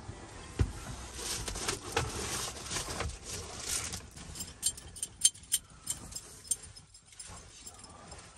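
Someone climbing into a van and moving about inside: knocks and footfalls on the floor, clothes rustling, then a run of light clicks and taps as he settles.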